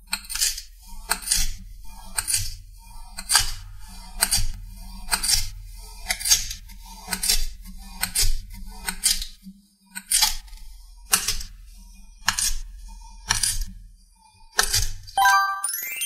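A knife slicing down through moulded kinetic sand, about one cut a second. Near the end a short rising sound effect.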